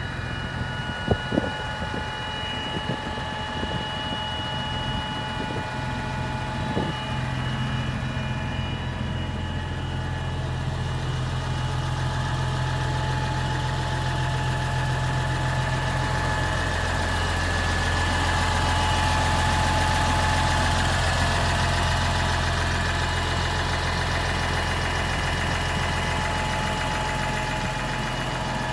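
Diesel engine of a 2013 Massey Ferguson 6465 Dyna-6 tractor idling steadily, with two sharp clicks about a second in.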